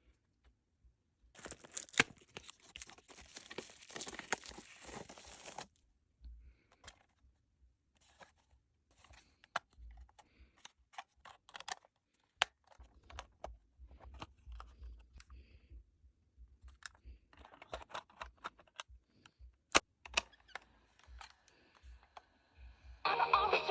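Packaging being opened and handled: a stretch of plastic wrap tearing and crinkling for about four seconds, then scattered clicks and taps as the cassette player and its box are handled. Music starts just before the end.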